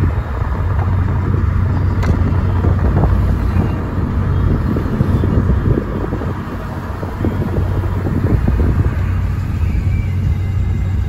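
Road noise heard inside a moving car: a steady low rumble of tyres and engine, with one brief click about two seconds in.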